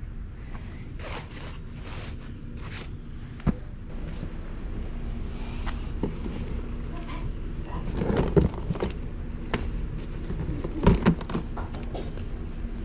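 Handling noise of handbags being picked up and handled, scattered clicks and knocks with the loudest clusters near the middle and near the end, over a low rumble of wind on the microphone. Footsteps on a concrete driveway come early on.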